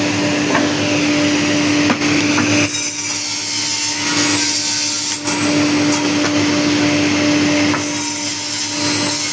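Electric cutting machine running: a steady motor hum with a hiss of cutting on top that swells and eases every second or two.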